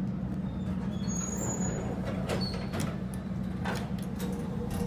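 Schindler hydraulic elevator car travelling down: a steady low hum and rumble, with a few faint clicks.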